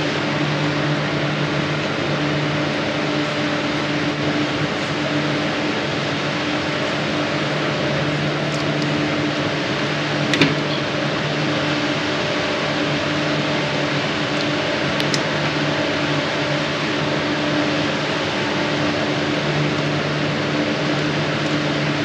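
Steady fan-like rushing and low electrical hum of running equipment in the mechanical room, the hum slowly fading and swelling. A sharp click about ten seconds in and a fainter one a few seconds later.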